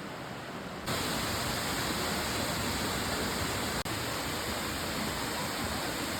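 Waterfall: a steady rush of falling water, stepping up in level about a second in, with a momentary dropout just before four seconds.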